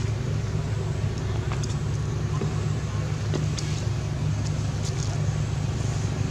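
Steady low rumble, like a motor running nearby, with a few faint clicks over it.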